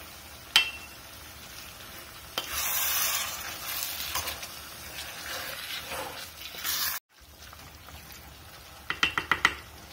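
Spiced sangri and ker sizzling in a hot stainless steel pot while a wooden spoon stirs them, the sizzle rising to a loud hiss from about two and a half seconds in. It cuts off sharply around seven seconds, then comes back quieter, with a quick run of clicks near the end.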